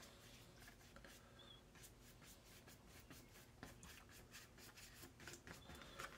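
Faint, irregular scratching of a paintbrush stroking across watercolor paper.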